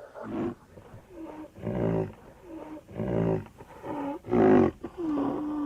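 Rhinoceros calling in a series of short calls, about one a second, each bending in pitch. A louder, harsher call comes about four and a half seconds in, and a longer call held at one low pitch follows near the end.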